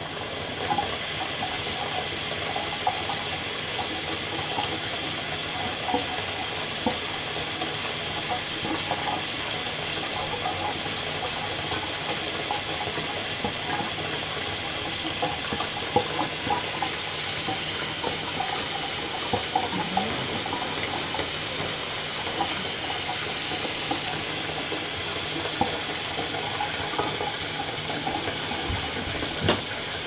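A faucet runs steadily into a plastic tub that overflows into a stainless steel sink: an even hiss of pouring and splashing water, with a couple of brief ticks.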